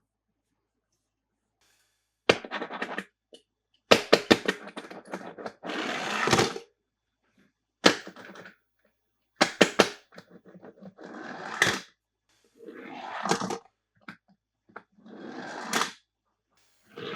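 Hands working plastic toy packaging and toy cars: bursts of sharp clicks and cracks mixed with scraping and rustling, in clusters of a second or so with silent gaps between.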